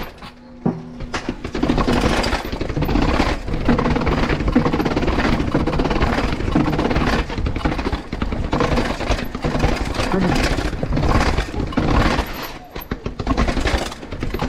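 Banshee Legend downhill mountain bike riding fast over a rough trail: tyres rumbling over dirt and rocks, with a continuous clatter of the chain slapping the frame. The level dips briefly about half a second in.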